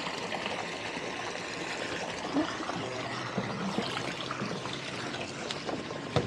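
Water pouring steadily from a small pump's discharge and splashing onto the water as the flooded boat is pumped out, with a sharp knock just before the end.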